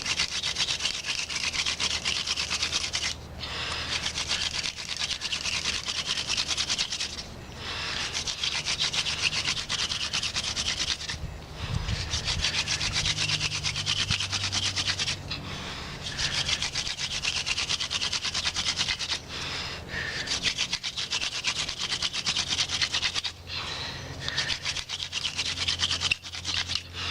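Hand-drill fire by friction: a bamboo shaft with a mugwort tip spun rapidly back and forth between the palms, grinding into a yucca hearth board with a fast, steady rubbing rasp. Runs of several seconds are broken by short pauses about every four seconds. The drill is already smoking and building toward an ember.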